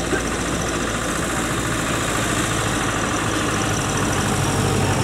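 Engine of a 1930s narrow-gauge passenger railcar running steadily as the railcar moves slowly along the track, growing slightly louder near the end.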